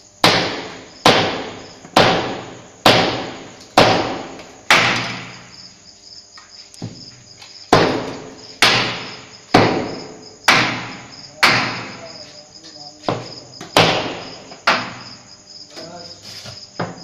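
Hammer blows on the steel of a fire-tube boiler, about one a second, each blow ringing out and dying away, with a pause of a couple of seconds midway. A faint high chirping runs underneath.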